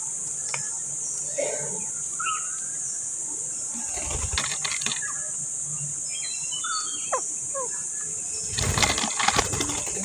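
Two bursts of close rustling and clicking, about four and nine seconds in (the later one louder), as a rose-ringed parakeet moves about at the microphone. A steady high insect chorus and a few short bird chirps run underneath.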